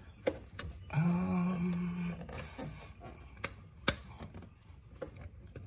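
Scattered light clicks and taps of hands working on car parts, opening up a fitting to refit a hose, with a man's brief hum about a second in.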